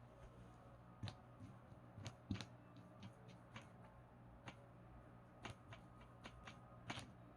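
Irregular light taps and clicks of a cat pawing at a vacuum cleaner cord, the cord knocking on the floor, about a dozen over a few seconds with the sharpest near the start, the middle and the end, over a faint low hum.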